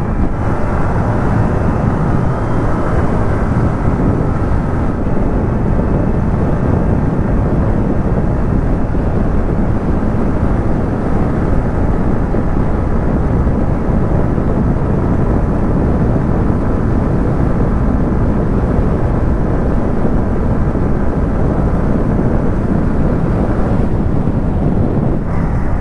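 Steady rush of wind and road noise from riding a Yamaha MT-15 motorcycle at cruising speed on a highway, with the engine running evenly underneath.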